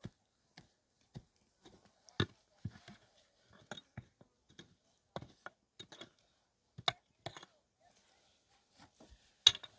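Irregular sharp knocks and taps, one every half second to a second, with a louder knock near the end.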